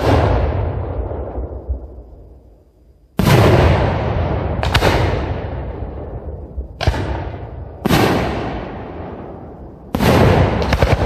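Aerial firework shells bursting one after another: about seven loud booms, each trailing off in a long rolling echo.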